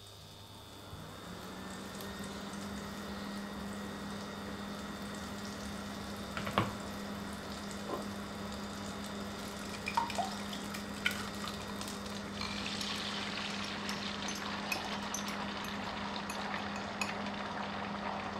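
A kitchen appliance starts humming steadily about a second in, under a hiss that slowly grows. A few sharp clicks are scattered through it, and from about two-thirds of the way in a brighter crackle joins, the kind of sound water or food makes as it heats.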